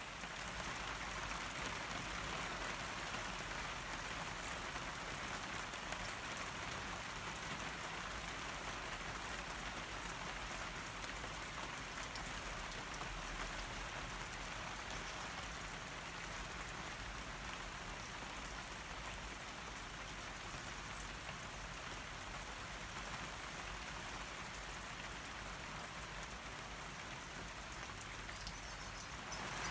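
Steady rain, with many drops pattering on a corrugated plastic roof overhead.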